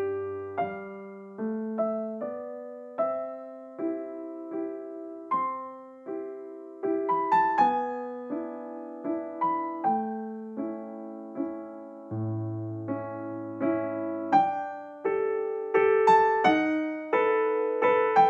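Background piano music: a slow melody of struck notes over changing chords, each note fading after it is played.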